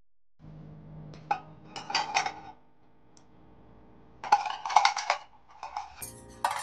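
Hard small items clicking and clinking against an IKEA Skådis pegboard and its plastic cup as metal hooks are set in the slots and pens are put into the cup, in two short bursts of clatter. Piano music starts near the end.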